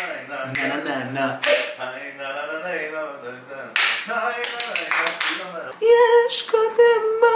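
A man singing a cappella in an exaggerated, theatrical way, moving between short sung phrases and, for the last second or so, a long held note.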